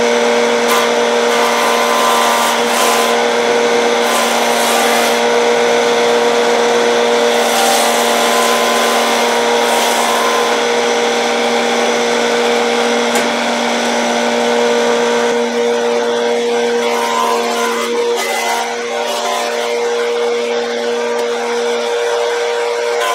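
Benchtop jointer running with a steady motor hum while its cutterhead planes the edge of a rough-sawn oak board fed across it.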